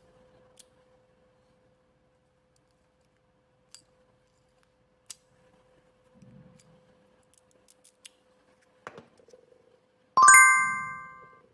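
Small scattered clicks and ticks of a newly cut HYN14 key being worked in a lock, over a faint steady hum. About ten seconds in, a loud bright chime of several ringing tones sounds once and fades away.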